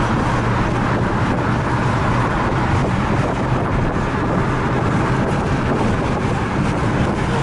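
Steady road noise heard from inside a car cruising at highway speed, the tyre and wind noise of the moving car filling the cabin.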